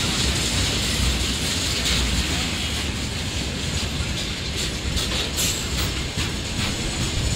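A freight train of railway tank wagons rolling past at steady speed: a continuous low rumble of wheels on the rails, with a few faint clicks about five seconds in.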